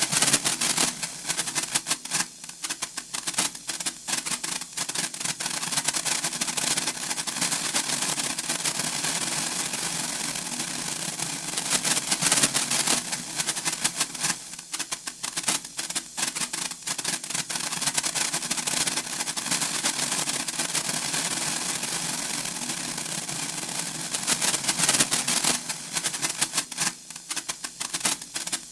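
Senko hanabi (Japanese hand-held sparkler) crackling: a dense run of tiny rapid pops and spits that thickens into louder crackling about twelve seconds in and again near the end, and thins out in between.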